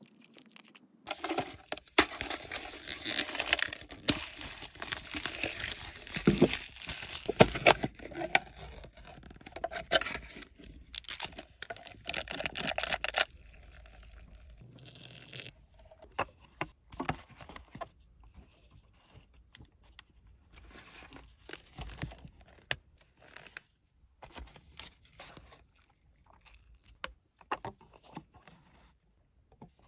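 Packaging crinkling and tearing as a paper cup of instant ramen is unwrapped and its lid peeled back. This is followed by a short pour of hot water into the cup about halfway through, and then a few light clicks and taps.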